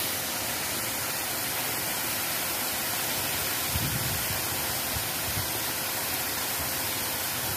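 Steady rushing noise of flowing river water, with a few low wind thumps on the microphone about four seconds in.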